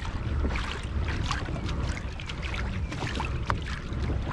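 Water lapping and splashing against the hull of an Old Town Predator PDL pedal kayak under way, with many small sharp ticks of water over a steady low wind rumble on the microphone.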